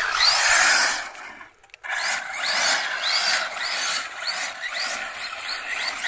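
Electric motor of a 1/7-scale 4WD RC car on a 4S battery, whining up in short rising bursts as the car is throttled again and again, over a loud rushing hiss. The sound drops out briefly about a second and a half in.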